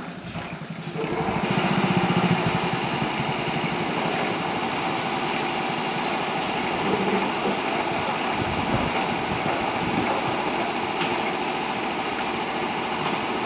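Hand-wheel crank and lift screw of a metal crank table base grinding and squeaking steadily as the wheel is turned, starting about a second in; the mechanism seems to have been left unoiled.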